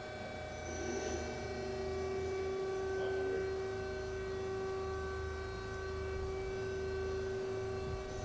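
Main spindle of a 1997 Okuma & Howa ACT-35 CNC lathe spinning up and running: a steady whine sets in about a second in and holds, over the machine's constant hum.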